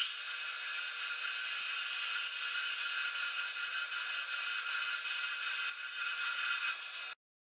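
Metal lathe running while a twist drill in the tailstock chuck bores into the end of a spinning metal bar: a steady whir with a high-pitched whine and hiss of cutting. It stops abruptly near the end.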